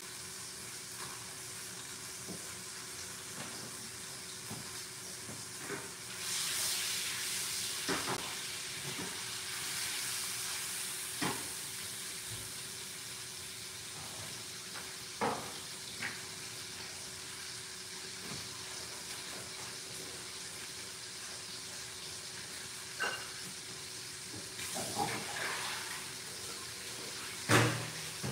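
Steaks frying in a pan on a gas stove: a steady sizzle, with scattered clinks and knocks of kitchen utensils and a few stretches of louder hiss. A sharp knock near the end is the loudest sound.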